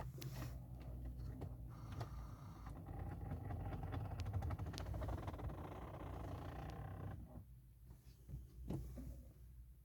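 Ford Mondeo Mk4 failing to start: a steady hum for about seven seconds that then stops, and a sharp tick near the end in place of the engine cranking, the only response to the start attempt.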